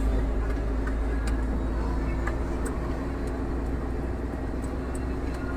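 Scania R440 truck under way, heard from inside the cab: a steady low diesel engine and road rumble with a few small rattles and clicks.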